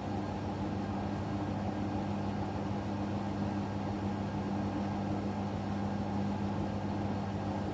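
Hoover washing machine running on its final spin in a suds lock, a steady hum over an even rushing noise. Excess foam is holding the drum back from full spin speed.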